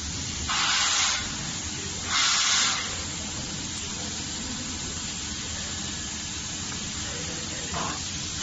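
Short bursts of hissing noise, about half a second each, twice in the first three seconds and once more briefly near the end, over steady background noise.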